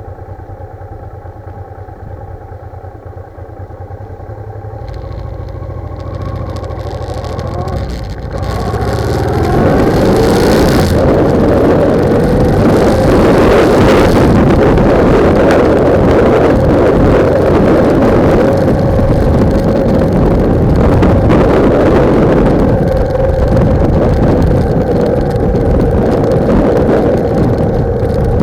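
Motorcycle engine running at low speed with steady engine tones, then the bike picks up speed about eight seconds in and loud wind buffeting on the bike-mounted microphone rises and drowns most of the engine.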